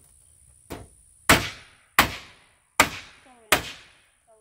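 Hammer blows at a door frame during an exterior door installation: five sharp strikes, roughly two-thirds of a second apart, the first lighter than the rest, each with a short ringing tail.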